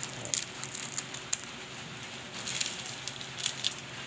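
Small plastic spice sachet crinkling as it is handled and shaken out, in short scattered crackles.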